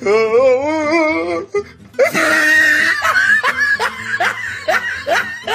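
A drawn-out, wavering laugh for about a second and a half. After a brief pause comes a run of short repeated laughs with music behind.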